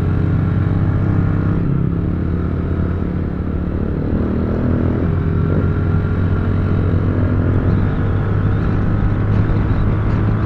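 Honda XRE motorcycle's single-cylinder engine running with a loud rumble through an aftermarket exhaust at a steady riding pace, its note shifting slightly a couple of times.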